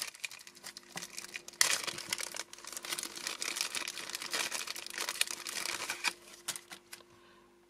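Clear plastic bag crinkling as it is pulled open and unwrapped by hand. It starts as scattered crackles, goes dense and steady from about one and a half seconds in, and dies away near the end.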